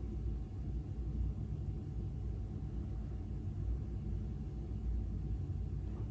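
A person snoring in deep sleep: a low, steady rumble.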